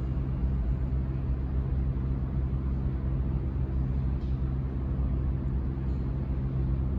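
New York City subway train (a downtown 6 train) approaching the platform through the tunnel, heard as a steady low rumble with a deep hum.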